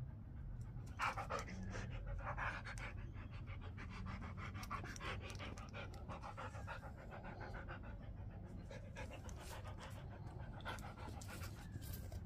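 A dog panting in a quick, even rhythm.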